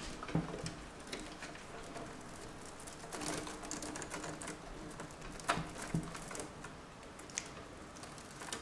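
Hands handling and bundling power-supply cables inside an open metal PC case: irregular rustling with scattered clicks and taps, the sharpest a little past halfway.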